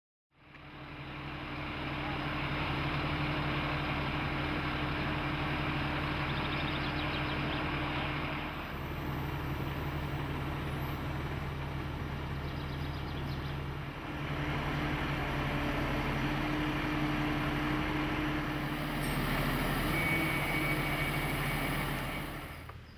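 A large engine running steadily, a low drone with a hum beneath it. The sound dips briefly about eight and a half seconds in and again about fourteen seconds in.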